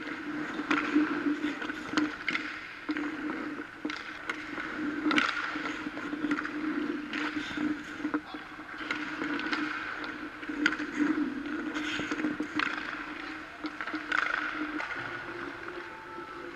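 Skates and goalie pads scraping on rink ice, with sharp knocks of sticks and pucks every second or two, over a steady hum.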